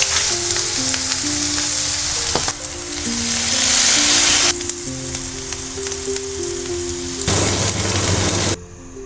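Tofu frying in a cast-iron pan, a dense, steady sizzle that changes abruptly a few times and falls away sharply near the end. A simple, gentle melody plays underneath.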